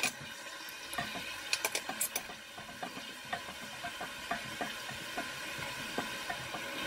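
Diced onions sizzling in hot cooking oil in a pot, stirred with a silicone spatula that scrapes and taps the pot in short, irregular clicks over the steady hiss of the frying.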